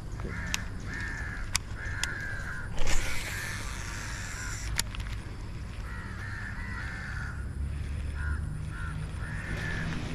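Crows cawing in short, repeated calls, a run of them over the first couple of seconds and another from about six seconds on. A few sharp clicks and a brief louder rush come about three seconds in.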